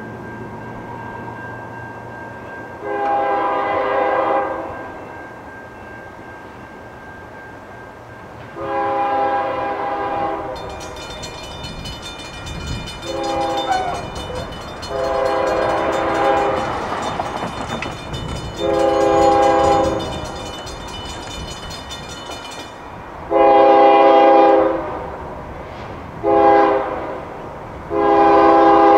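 Diesel locomotive air horn sounding the long, long, short, long grade-crossing warning twice, the standard signal for approaching a road crossing. Between the blasts the rumble of the passing train rises and falls.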